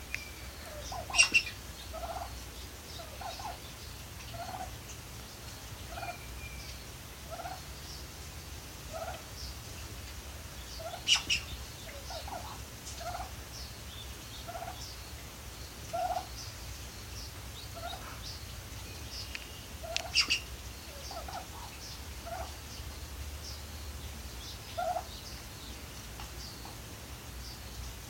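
Bronze turkey hen clucking softly in short notes about every one to two seconds, with three louder, sharper calls spread through.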